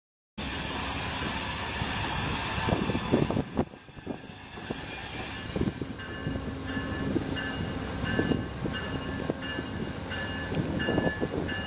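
Amtrak GE Genesis P42DC diesel locomotive arriving at a station platform: a loud rushing noise and rumble for the first few seconds, then, about halfway through, the locomotive's bell ringing steadily about twice a second over the engine's low rumble.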